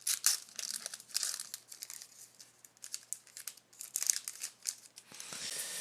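Plastic packaging crinkling and rustling with irregular sharp crackles as trading cards are handled, with a longer rough rustle near the end.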